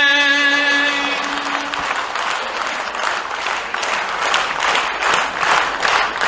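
An ashik's last long sung note with the saz ends within the first two seconds, and the audience breaks into steady applause.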